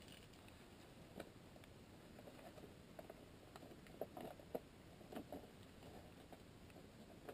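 Near silence with scattered faint clicks and taps, the sharpest two about four and four and a half seconds in.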